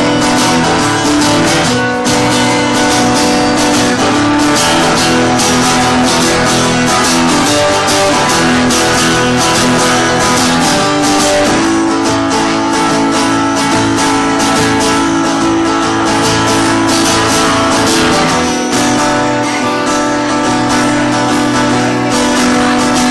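Acoustic guitar strummed steadily, playing a song's chords live, with chord changes along the way.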